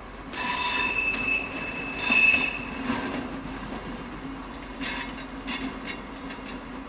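Steel wheels squealing on the rails as a diesel shunting locomotive rolls slowly past, over its steady engine hum. There are two high squeals in the first three seconds, the second louder, then a few short squeaks and clicks near the end.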